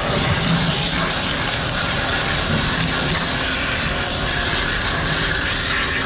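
High-pressure water jet from a spray wand washing leftover concrete off a concrete mixer truck's chute: a steady, loud hiss of spray over a low rumble.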